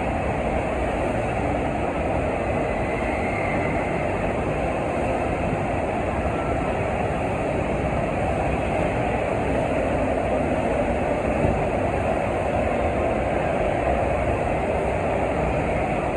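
Steady rushing of water from a FlowRider sheet-wave machine: a thin sheet of pumped water racing up the padded slope under a bodyboarder.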